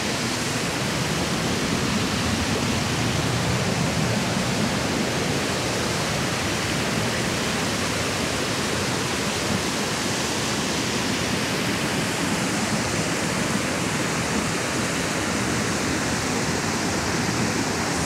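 Steady rushing of a shallow, rocky river and waterfall: an even wash of water noise.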